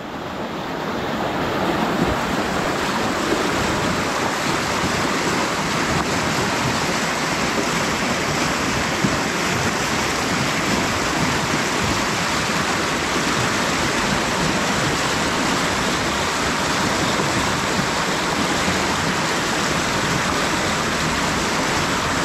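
Steady rush of flowing water, fading in over the first two seconds.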